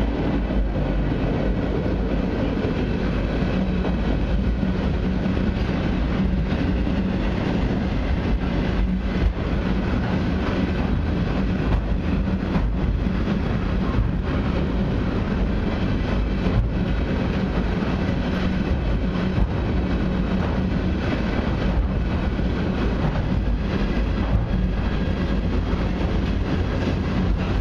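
Long freight train's flatcars rolling steadily past: a continuous rumble of steel wheels on the rails with a low hum and scattered clicks as the wheels cross the rail joints.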